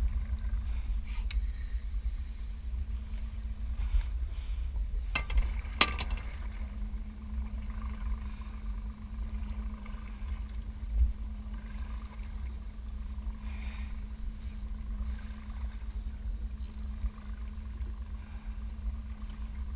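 Boat motor running steadily with a constant low hum over a deep rumble, and two sharp knocks about five and six seconds in.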